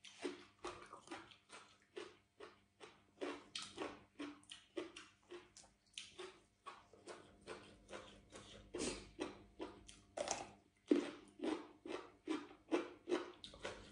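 A person chewing food close to the microphone: a steady run of chewing sounds, about three a second.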